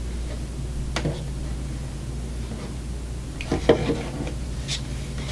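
Light clicks and knocks of an alarm clock being handled and turned over: one about a second in, then a few more close together near the end, over a steady low electrical hum.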